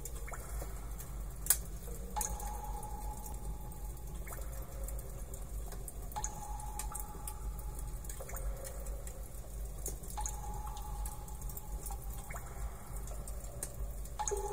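Car audio system with Peerless speakers playing a test track inside the car cabin: a click followed by a ringing tone, repeating about every two seconds over a steady low rumble, with one sharp click about a second and a half in.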